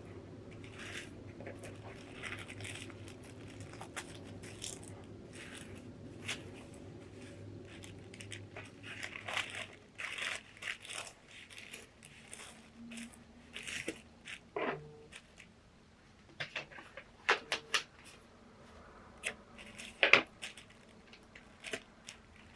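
Paper and packaging being handled close by: rustling, crinkling and tearing, with sharp taps and clicks. A low steady hum underneath stops about halfway, and the handling sounds grow busier after that.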